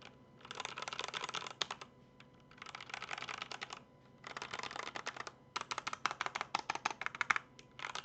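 Zifriend KA646 mechanical keyboard with red linear switches being typed on: rapid runs of key clacks in about five bursts with short pauses between them.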